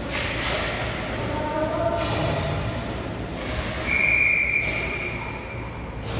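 A referee's whistle, one short steady blast about four seconds in, over steady background noise, with a thud near the start.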